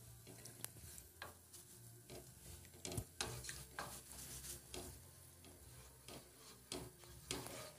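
A spoon stirring and scraping in a metal pot of fish broth as flour is sprinkled in to thicken it into pirão, with scattered faint clicks of the spoon against the pot over a faint low hum.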